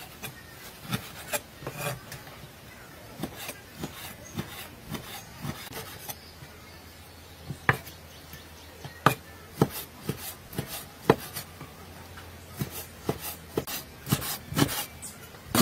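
Cleaver slicing raw meat on a wooden cutting board: irregular knocks of the blade on the wood, with a few sharper strikes in the middle and quicker taps near the end.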